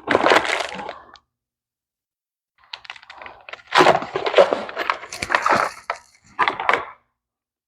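Packaging being handled and opened: crinkling and rustling with small clicks and knocks. It comes in a burst lasting about a second at the start, then again for about four seconds from near the three-second mark.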